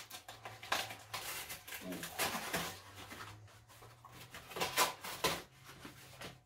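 Rustling and knocking of things being handled, in several short bursts, over a faint steady low hum.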